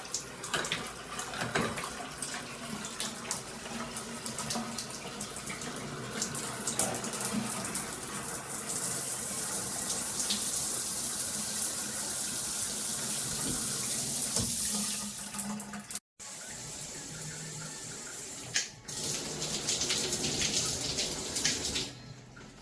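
Water running steadily from a tap or shower fixture, splashing into a tub, with a few knocks of handling. It cuts out briefly about two-thirds of the way through.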